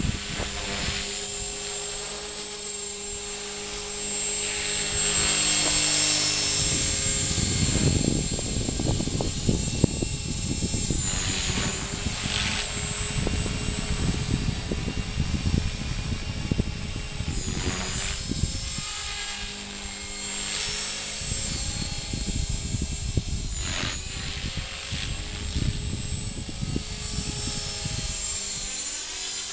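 Align T-Rex 450 Pro electric RC helicopter flying 3D manoeuvres: a steady rotor and motor whine whose pitch dips and swoops back up several times as the load changes. Gusty wind rumbles on the microphone in stretches.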